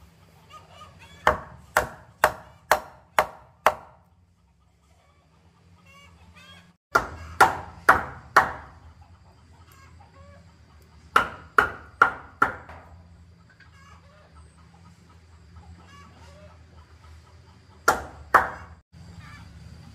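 A wooden mallet drives a steel chisel into a wooden plank, chopping a mortise. The sharp blows come in bursts of five or six at about two a second, with pauses between, and end with two last blows near the end.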